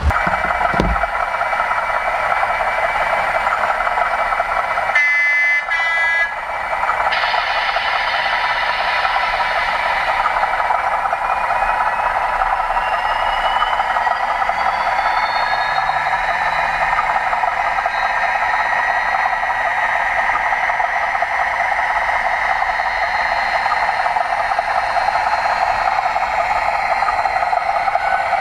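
Model railway train running, a steady mechanical hum, with a short burst of tones about five seconds in.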